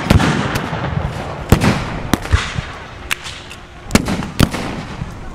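Ragged black-powder rifle-musket fire with blanks: many sharp shots at irregular intervals, each followed by a short echo. The loudest shots come about a second and a half in and near four seconds.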